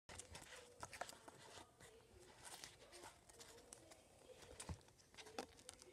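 Faint handling noise: scattered soft clicks and rustles of a paper note and a plastic tub being turned over in the hands.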